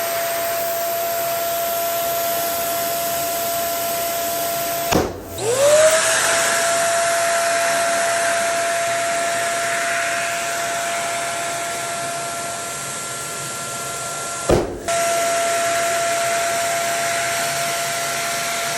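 A small electric blower motor running with a steady whine and hiss. It cuts out twice after a short thump, about five seconds in and again near fifteen seconds. The first time its pitch glides back up as it spins up again.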